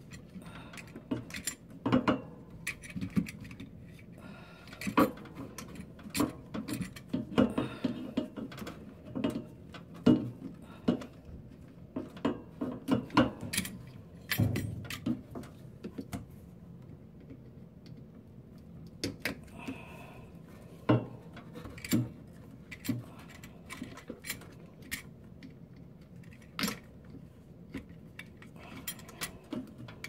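Irregular plastic clicks, knocks and rattles as a hand twists and pries at the white plastic drain pump housing of a Kenmore top-load washer, trying to pop it off. The clicking is busiest in the first half and thins out in the middle.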